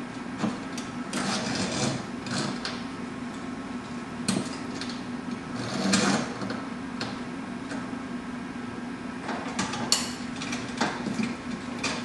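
Steel safety cable being threaded through the holes of a garage door's metal track and brackets by hand: irregular metallic clicks, taps and rattles, with a steady low hum underneath.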